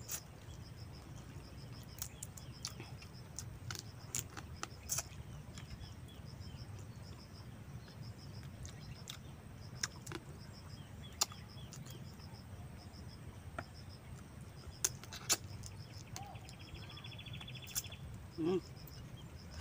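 Scattered sharp clicks and cracks of crab and oyster shells being handled and broken apart while eating, over a steady low hum. Regular high chirping runs in the background, with a short rapid trill near the end.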